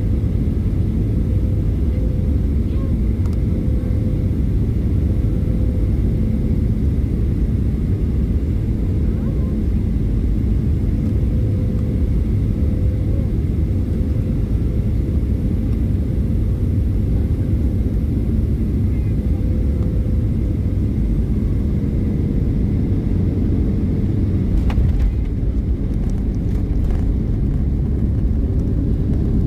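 Cabin noise of a Boeing 737-800 on final approach: a steady low rumble of CFM56 engines and airflow, with a steady hum that sags slightly in pitch near the end. A brief knock comes about 25 seconds in.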